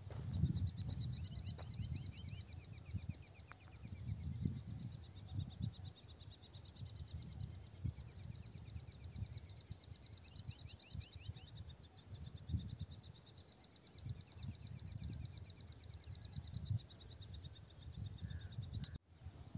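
Chirping from small field creatures: high, rapidly pulsed trills of a second or two each, repeating every few seconds, with a lower trill now and then. An irregular low rumble runs underneath.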